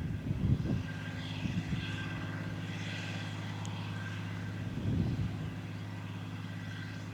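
Tractor engine running steadily at a constant speed, with brief low rumbles about half a second and five seconds in.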